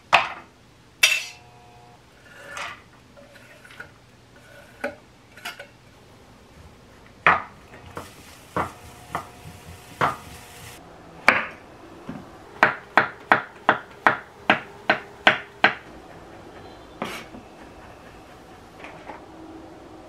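Wooden spatula knocking and scraping against a ceramic-lined frying pan while diced vegetables are stirred, with a quick run of about eight sharp taps, roughly three a second, a little past the middle.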